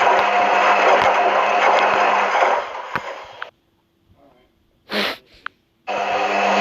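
Washing machine running with a steady hum that fades out about three seconds in. After a short gap with one brief sharp sound, the machine's noise starts again abruptly near the end.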